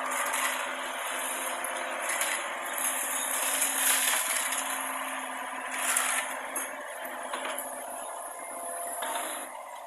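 Mini excavator running steadily while building rubble rattles and scrapes, with louder rattling surges about four and six seconds in.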